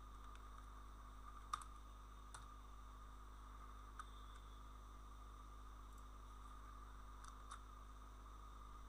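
Near silence: a steady hum and hiss of room tone, with a few faint computer mouse clicks, the loudest about a second and a half in.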